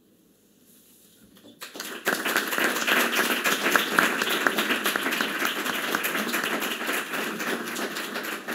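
An audience applauding: after a short quiet the clapping starts about a second and a half in and goes on steady and dense.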